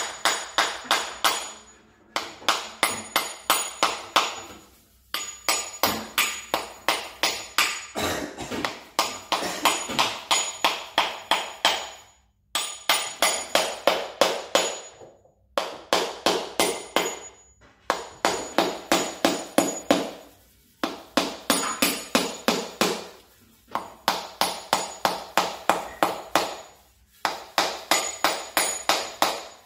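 Kitchen knife striking a whole coconut's hard shell over and over, the usual way of cracking one open. It comes as runs of quick, sharp knocks, about four a second, broken by short pauses every two or three seconds.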